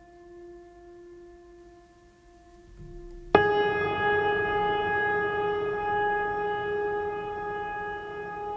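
Background music: a quiet held wind-instrument note, then a little over three seconds in a sudden loud metallic strike that rings on with many steady overtones.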